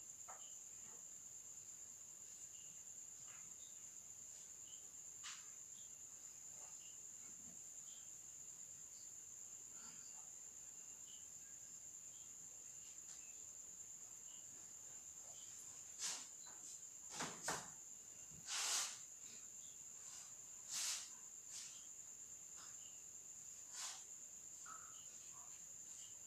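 Faint, steady high-pitched trill of crickets. In the second half a handful of short scratching strokes of a pencil on paper stand out above it.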